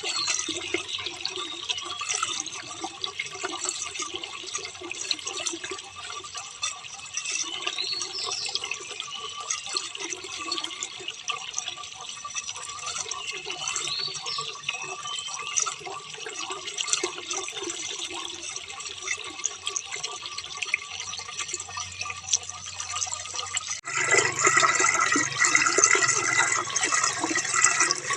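Running water and rain, a steady splashing with many small drips and patters; about four seconds before the end it jumps suddenly louder and brighter.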